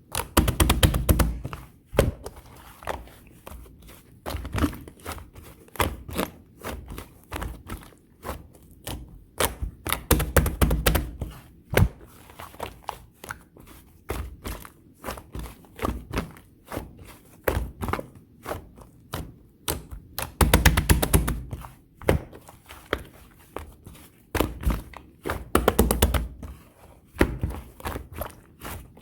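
Clear pink slime with clay mixed in being kneaded and pressed by hand, giving many small clicks and pops. Several longer, louder dull squishes come about a second in, around ten seconds, around twenty-one seconds and around twenty-five seconds.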